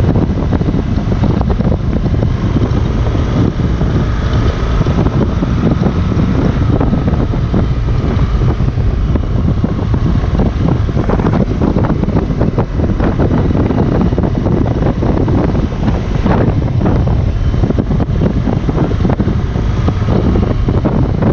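Wind rushing over the microphone of a moving motorcycle, with the 2018 BMW R 1200 GS's boxer-twin engine running beneath it at a steady cruise.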